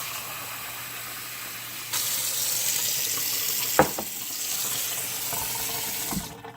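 Sink faucet running hot water into a bowl. The flow gets louder about two seconds in, there is a single short knock just before the four-second mark, and the water shuts off near the end.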